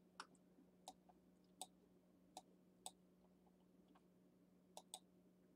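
Faint, scattered clicks of a computer mouse, about seven in a few seconds at an irregular pace, over a faint steady hum.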